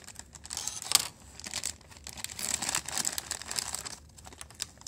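Crinkly plastic snack bag being cut open with scissors and handled, giving an irregular run of sharp crackles that is loudest about a second in and dies down near the end.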